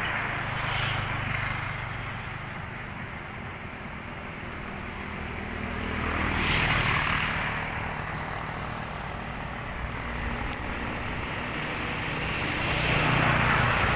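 Motorcycle tricycle engine running while riding, with road and wind noise; it swells louder twice.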